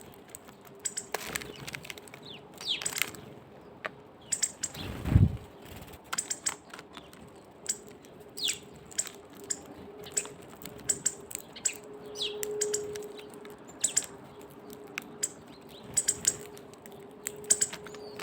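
Small birds making sharp, irregular tapping and cracking clicks, like pecking at seeds or wood, mixed with short falling chirps. A single louder low thump about five seconds in.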